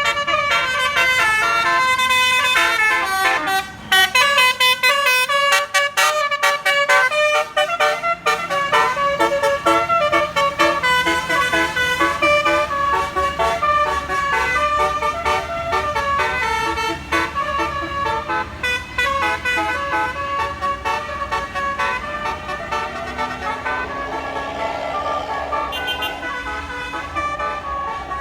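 A bus's basuri musical air-horn (telolet) playing a fast melody of stepped horn notes, with the bus's engine running beneath in the later part.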